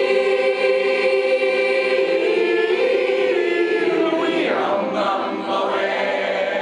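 A group of men and women singing together as a chorus, holding long notes.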